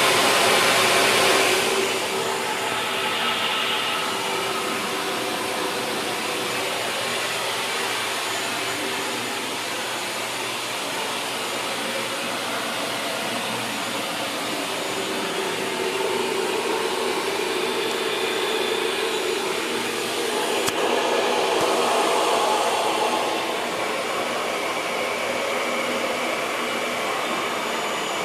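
Shop vac motor running steadily with a continuous rush of air, being used to find exhaust leaks. It is louder for the first couple of seconds and again briefly about two-thirds of the way through.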